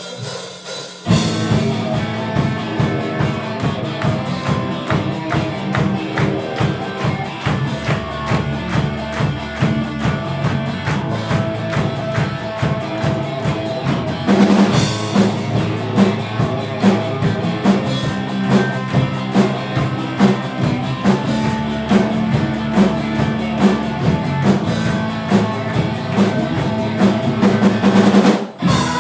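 Rock band playing live: drum kit with bass and other instruments in an instrumental passage without vocals. It comes in sharply about a second in, has a loud crash halfway through, and breaks off briefly near the end.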